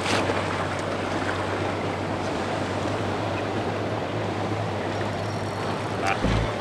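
Steady rush of surf washing over the rocks, with the boat's engine running low underneath. A brief click at the start and a low thump near the end.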